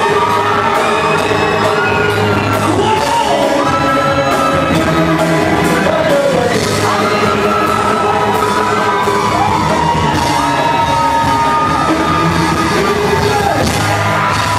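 Live band playing an amplified pop song with a steady beat, and singers singing into microphones over it.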